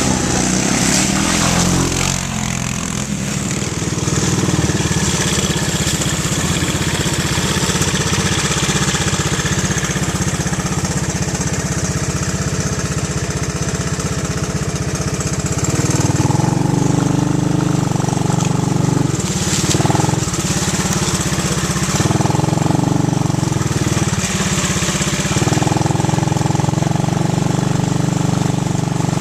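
A small engine running steadily, its pitch shifting several times in the second half as it is revved and eased off.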